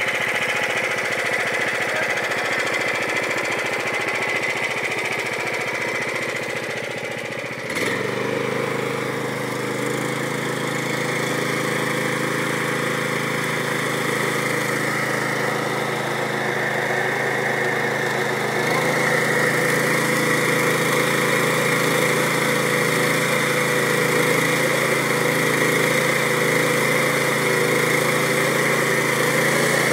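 Small single-cylinder gasoline engine driving a wakeboard cable winch, running steadily. About eight seconds in the sound changes abruptly from a fast even chatter to a steadier, more tonal running note, and a little past halfway it gets slightly louder.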